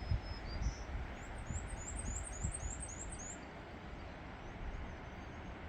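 Outdoor ambience: a low, uneven rumble over a steady hiss. Through the middle, a small bird gives a quick series of about eight high, down-slurred chirps, with a few fainter notes just before.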